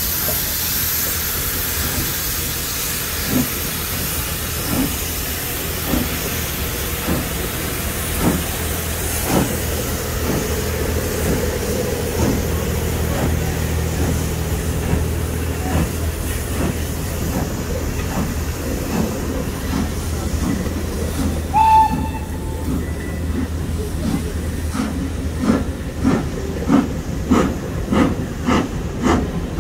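Steam locomotive No.85 'Merlin', a 4-4-0 compound, pulling away: steam hissing from its open cylinder cocks and exhaust beats that come faster as it gains speed, over a low rumble. Near the end the carriages roll past with a regular clacking of wheels, and there is one brief tone about two-thirds of the way through.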